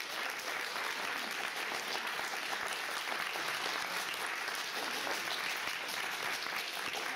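Audience applauding: many hands clapping in a steady patter.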